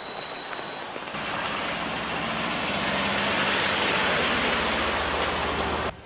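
Steady rain hiss. About a second in, a louder motor vehicle's running engine joins it: a low steady hum under a rushing noise. The sound cuts off suddenly near the end.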